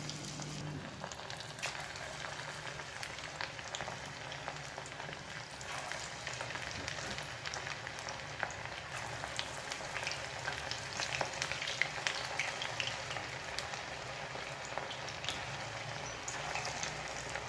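Coated chicken pieces deep-frying in hot oil: a steady sizzle with many small crackles and pops.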